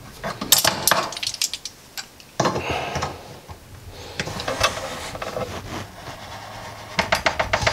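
Metal wrench on a bathroom faucet's mounting nut being tightened from under the sink. It clicks and scrapes in about four short bursts of rapid clicks, roughly two seconds apart.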